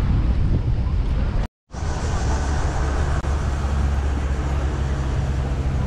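An engine running steadily with a low drone, under wind and water noise. The sound drops out completely for a moment about a second and a half in, then the drone carries on unchanged.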